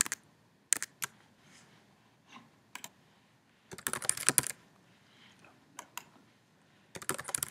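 Computer keyboard keystrokes with a few single clicks. There are sharp single clicks in the first three seconds, a quick flurry of keystrokes about four seconds in, and another flurry near the end.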